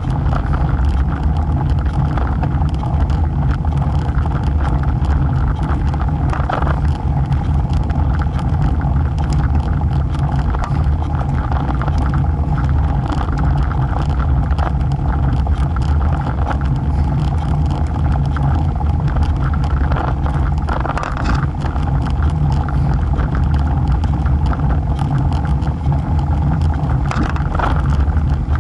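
Road bike riding on a rough mountain road, heard through a camera mounted low by the front wheel: a loud, steady rumble of tyre and wind noise, with many small clicks and rattles from road bumps.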